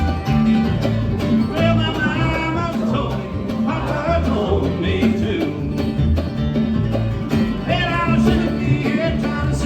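A bluegrass string band playing live, with steady bass notes under plucked string lines.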